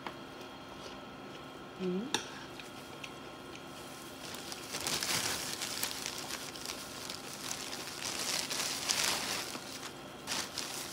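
A thin plastic bag rustling and crinkling in stretches as a hand reaches into it for bread, after a short hummed vocal sound and a click about two seconds in.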